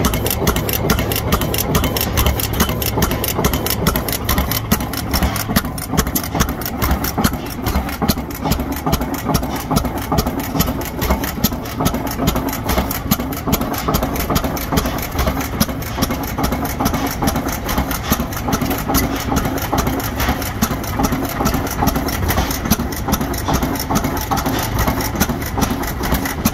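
Fairbanks Morse Model Z hit-and-miss engine running steadily, with a rapid rhythmic clatter of its valve gear and exhaust.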